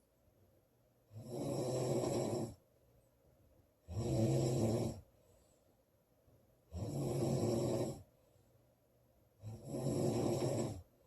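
A woman snoring loudly: four snores about three seconds apart, each lasting a second or so, with quiet gaps between.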